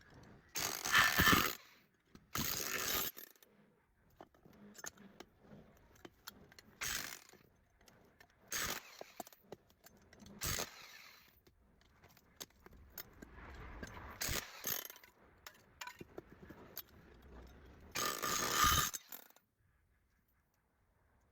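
Metal clanking, clicking and scraping from tools at work on a scrap electric motor, with several short harsh bursts of metal grinding or scraping. The loudest burst comes near the end and is followed by near silence.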